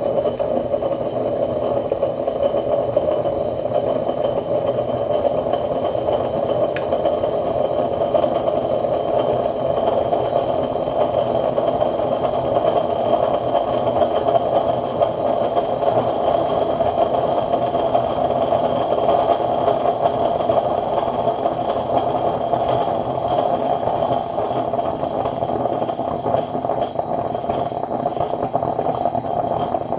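Coffee maker brewing, a steady, unbroken churning noise.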